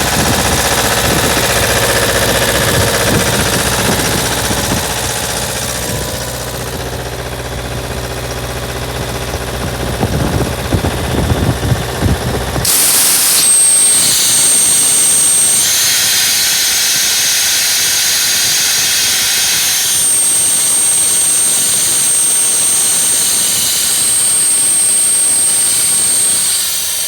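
Atlas Copco air compressor running, its engine giving a steady low drone. About halfway through, the sound switches abruptly to a loud, steady hiss of compressed air with a thin high whistle over it.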